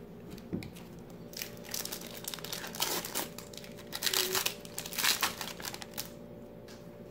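Foil wrapper of a 1996 Score Select football card pack crinkling and tearing as it is pulled open by hand. It goes as a string of crackles from about a second in until about six seconds in.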